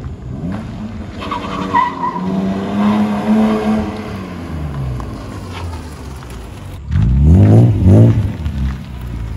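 BMW E36 M3's straight-six engine through a custom exhaust, its revs rising and falling as the car moves off and turns, then two quick, loud revs near the end.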